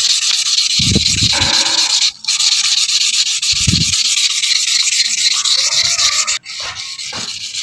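An agate gemstone is rubbed by hand in circles on wet, coarse wet-and-dry sandpaper, giving a steady gritty scraping hiss. This is the coarse sanding stage that takes off the dull surface before moving to 800 grit. The sound drops out briefly about two seconds in and again about six and a half seconds in.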